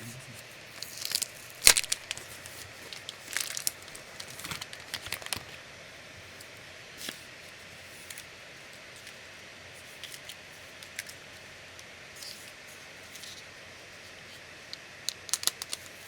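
Packaging being handled and opened: scattered rustling and tearing with sharp clicks, the loudest click about two seconds in. It is busiest in the first few seconds and again near the end, with quiet stretches between.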